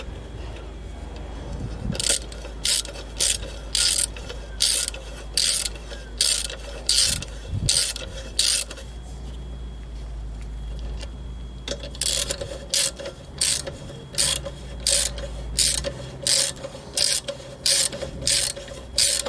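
Socket ratchet wrench being worked back and forth, with a short burst of rapid clicking on each back-stroke. There are two runs of about ten to a dozen strokes each, with a pause of about three seconds between them.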